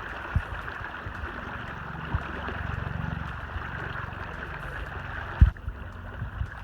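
River water rushing steadily, with a few low thumps and bumps; the loudest comes about five and a half seconds in, when the sound changes slightly.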